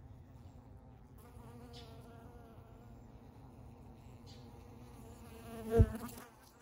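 Honey bees buzzing at the entrance hole of their colony nest in a tree trunk. The hum sets in about a second in, then swells to a brief loud peak near the end before dropping away.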